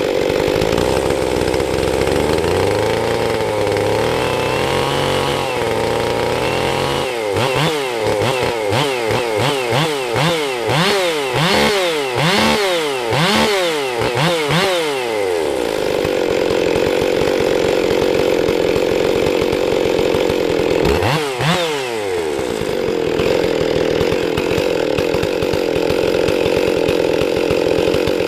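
Stihl 460 two-stroke chainsaw with a 28-inch bar running hard in a cut. About a quarter of the way in, the engine speed drops and recovers over and over for several seconds, then holds steady again, with one brief dip about three-quarters through. The chain has its rakers filed low, and the cut is a little grabby.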